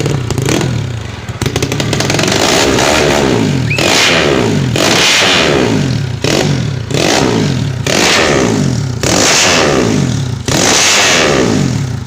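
Trail motorcycle built around a Yamaha Jupiter single-cylinder four-stroke engine, revving up over and over: the engine note climbs in pitch, then drops back sharply, about six times.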